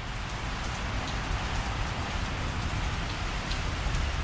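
Steady rain falling on and around an awning, an even hiss with a low rumble underneath.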